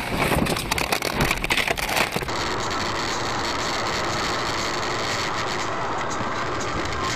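About two seconds of irregular clattering and crackling impacts, then from about two seconds in a steady hum of car road and engine noise heard from inside a moving car.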